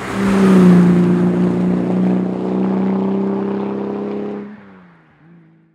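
Aston Martin DB4 GT Zagato's straight-six engine pulling at high revs on a steady note as the car goes by, loudest about half a second in, then fading away over the last second or so.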